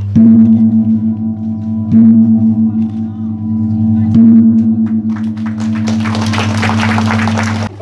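Large hanging bossed gong struck three times with a padded mallet, each stroke ringing on with a pulsing hum, as the ceremonial opening strokes. Applause builds about five seconds in, and the sound cuts off suddenly near the end.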